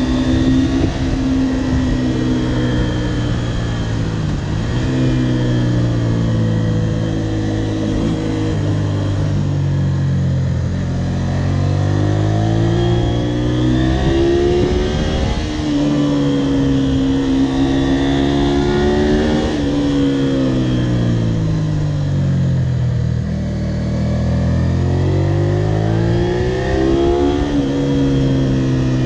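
Honda VTR250's 90-degree V-twin engine under way: the revs sink slowly for about ten seconds, climb again, then fall and climb once more, with short drops in pitch as the bike shifts up.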